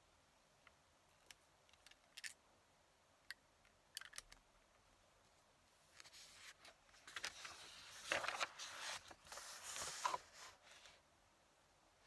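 A few small clicks of a fountain pen being handled, then several seconds of paper rustling as a written sheet of a writing pad is lifted and turned over, loudest about two thirds of the way in.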